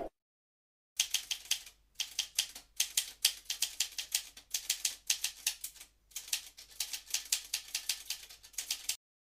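Typewriter keys clacking in quick, uneven runs of keystrokes, with two short pauses.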